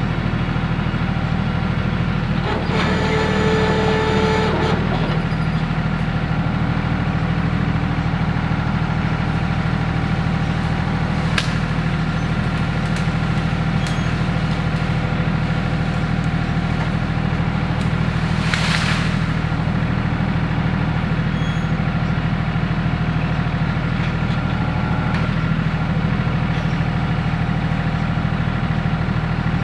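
RK 37 compact tractor's diesel engine running steadily. A brief whine about three seconds in, and a short hiss a little past halfway.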